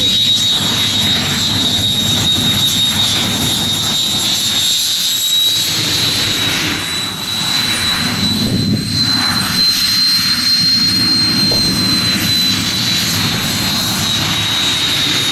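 Jet turbine engine on a racing quad running steadily: a continuous high whine over a rushing noise and low rumble.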